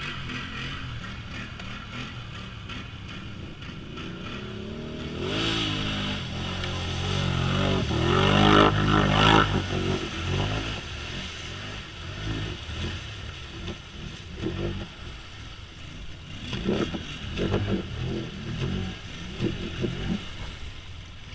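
Can-Am Outlander ATV engine revving hard as its tyres churn through a deep mud and water hole, the quad bogged and needing a push. The engine climbs to its loudest about eight or nine seconds in, then comes in shorter separate revs near the end.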